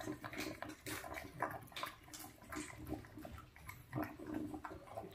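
French bulldog eating raw duck food: irregular wet chewing, smacking and lapping, mixed with short low grunting noises through its nose.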